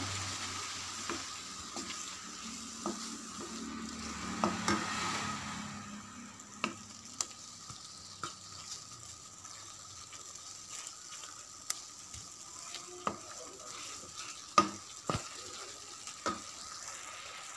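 Onion-tomato masala sizzling in a pan, with a wooden spatula stirring and scraping through it for the first few seconds. Then it is left to cook, sputtering with scattered sharp pops.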